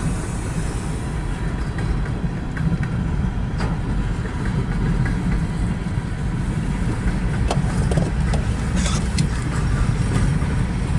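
Low, steady rumble of a long mixed-freight train rolling past a grade crossing, heard from inside a car, with a few short clicks.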